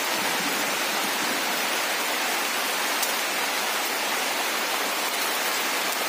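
Steady rain falling on leaves and wet ground, an even hiss.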